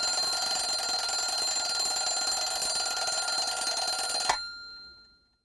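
Alarm clock bell ringing steadily, then cut off with a click about four seconds in, the ring dying away over the next second.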